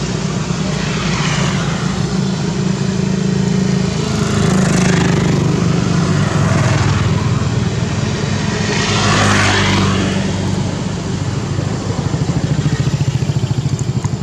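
Motor vehicles, motorbikes among them, passing one after another, about four passes with the loudest around nine seconds in, over a steady low engine hum.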